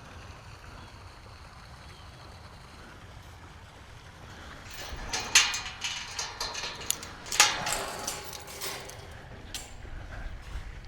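A run of knocks and clatters from things being handled, starting about four and a half seconds in, with two sharp loud knocks about two seconds apart, the second followed by a short ring, over a low wind rumble on the microphone.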